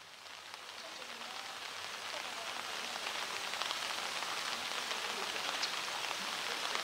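Steady rain falling on hard surfaces, an even hiss with scattered drip ticks, fading in over the first few seconds.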